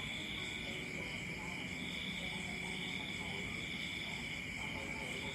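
A steady high-pitched drone of insects calling together, with an upper band that slowly swells and fades.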